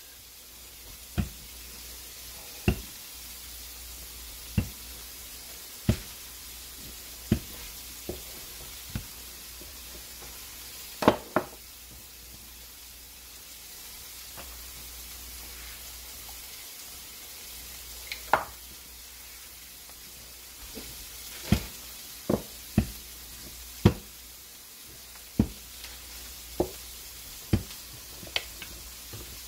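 Wooden rolling pin rolling out puff pastry on a granite countertop, with sharp knocks every second or two as the pin meets the counter, and a pause in the middle while the sheet is lifted. Under it runs a steady sizzling hiss of dinner cooking.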